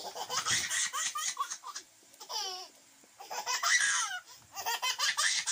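Young children laughing in several high-pitched fits, a toddler's laughter among them, with short squealing peaks and brief pauses between bouts.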